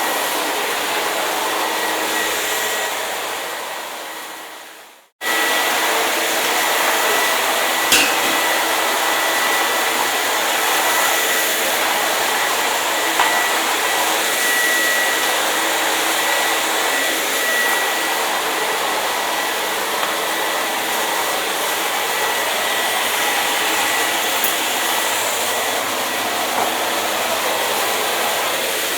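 Hair dryer blowing steadily: a full rush of air with a faint high whine. About four seconds in it fades away to a moment of silence, then comes back suddenly at full strength; a single click sounds a few seconds later.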